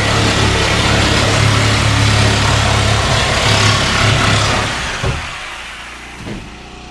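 Reciprocating saw cutting through wall boards, stopping about five seconds in, followed by two short knocks.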